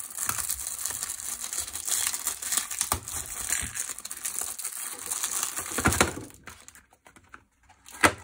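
Clear plastic shrink-wrap crinkling as it is peeled off a multipack of tape rolls for about six seconds, then quieting, with one sharp click near the end.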